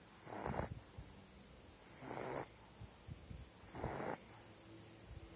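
Sleeping pitbull puppy snoring, three snores about two seconds apart.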